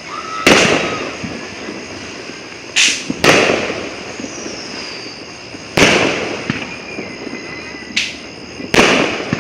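Fireworks exploding: six sharp bangs spread over about nine seconds, some in quick pairs, each trailing off in a fading rumble.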